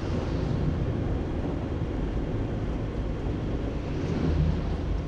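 Road noise from inside a car driving at about 50 km/h: steady engine and tyre rumble, with a heavy truck's engine swelling a little louder alongside about four seconds in.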